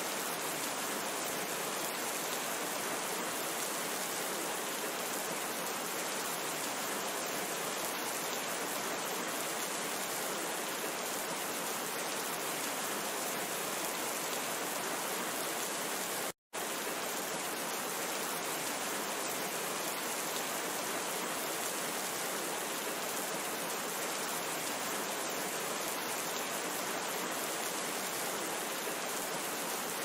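Steady, even rainfall. It cuts out for a split second about halfway through.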